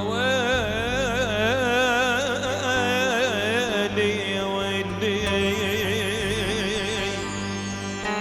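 Arabic music: a long wordless vocal line, held and heavily ornamented with vibrato for the first four seconds, then a softer held wavering note, over a sustained low accompaniment.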